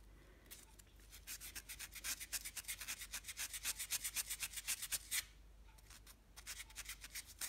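800-grit sandpaper rubbed back and forth inside the channel of a silver ring core, quick scratchy strokes about six a second, pausing briefly near the end before starting again. The channel is being roughened to knock the shine off and give the metal clay a key.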